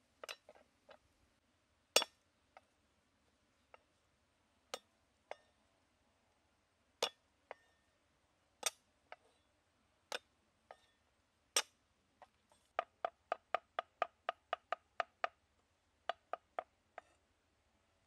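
Cleaver knocking on a wooden chopping board. Single strikes come a second or more apart, then a quick run of chops at about four to five a second as garlic is minced, then a few more strikes.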